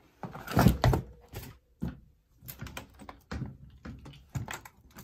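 Hands rummaging for and handling a small cable and nearby objects: a string of irregular clicks, rustles and light knocks, loudest about a second in.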